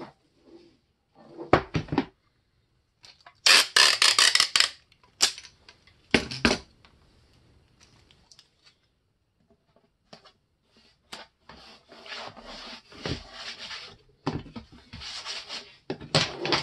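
Hands handling an electric heat gun on a workbench: short bursts of rubbing and scraping with a few sharp knocks. The loudest burst comes about three and a half seconds in.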